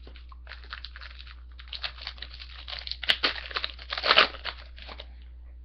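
A hockey card pack's wrapper being crinkled and torn open, the crackling getting louder with the sharpest tearing about three to four seconds in.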